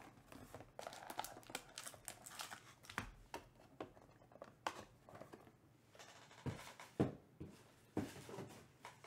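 Small cardboard trading-card box being opened and its cards slid out and handled: faint rustling and crinkling with scattered light taps, and a few sharper knocks in the second half.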